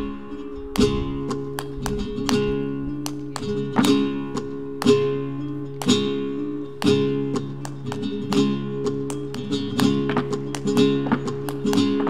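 Flamenco guitar strumming chords, with a sharp accented strum about once a second and lighter strokes between, each chord ringing out.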